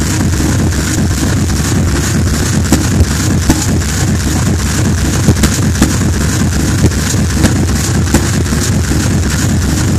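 Loud music over a club sound system. It is heavy in the bass and comes through muddy and distorted, as from an overloaded phone microphone.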